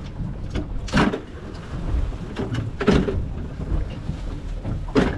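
Steady low rumble of wind and sea around a small fishing boat, broken by three louder rushes about two seconds apart.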